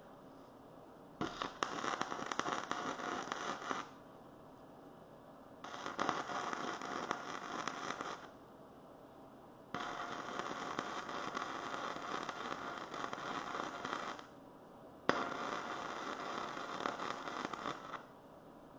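Electric arc welding on steel, with four spells of sputtering, crackling arc. The second-to-last spell is the longest, about four and a half seconds. Each starts and stops abruptly, with a faint steady hum in the pauses between them.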